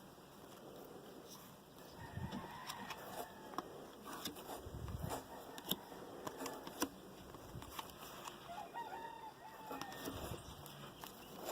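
Trading-card packs and cards being handled: crinkling wrappers and sharp clicks of cards, loudest about six and seven seconds in. A faint animal calls briefly in the background a couple of times.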